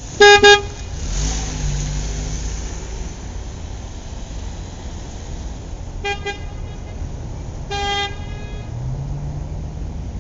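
Car horn honking in short toots: a quick double toot at the start, another quick double toot about six seconds in, and a single longer toot near eight seconds, over a steady low background rumble.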